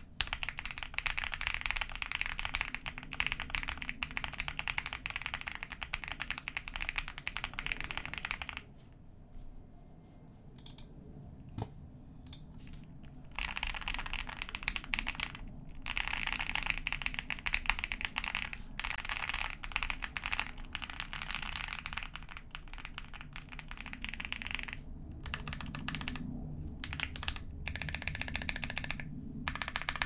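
Typing on a Meletrix Zoom65 Essential Edition mechanical keyboard with stock, factory-lubed Akko V3 Cream Blue Pro switches, lubed stabilizers and PBT keycaps: fast runs of key clacks. A pause of about four seconds comes a third of the way in, then typing again, broken into short bursts near the end.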